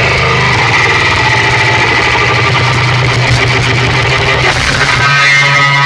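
Very loud bass-heavy DJ music blasting from a truck-mounted speaker rig in a sound-system competition, with a deep sustained bass that shifts to a slightly higher note about five seconds in.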